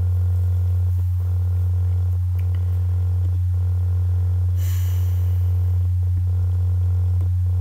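Steady, loud low electrical hum on the recording, with a brief soft hiss a little past halfway.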